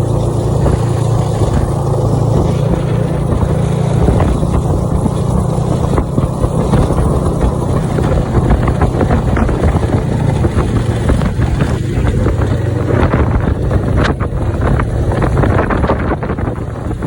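Snowmobile engine running steadily at a fairly constant speed, with many small knocks and rattles on top.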